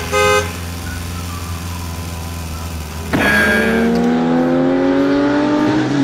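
Car sound effects: a short horn toot at the start over a low engine rumble, then about three seconds in a car engine starts up loudly and revs, its pitch climbing steadily.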